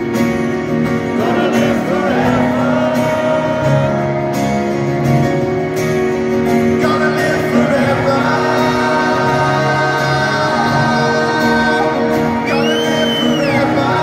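Live rock band playing a slow song with sustained guitar and keyboard chords, drums and singing, heard from the audience in an arena. Near the end a single whistle rises and falls over the music.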